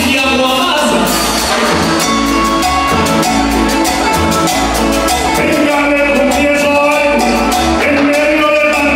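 Acoustic guitars strumming a brisk Colombian trova accompaniment, with a man singing improvised rhyming verses over it.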